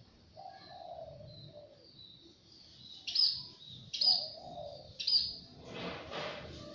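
Small birds chirping: three loud, sharp high chirps about a second apart in the middle, over fainter, lower calls.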